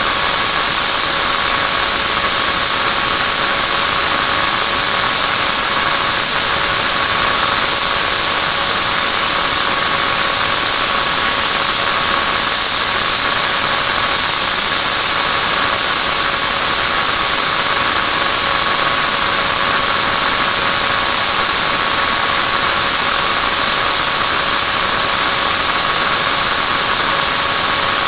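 Angle grinder running at a steady high-pitched whine while a small metal ring is held against it and ground down.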